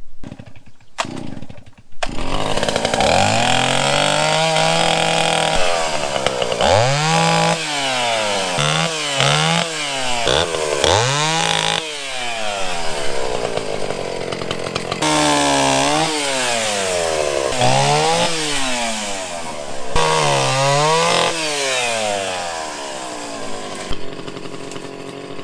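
Old Stihl 041 Farm Boss two-stroke chainsaw running with an unsharpened chain, coming in about two seconds in, its engine revving up and dropping back again and again as it works through branches.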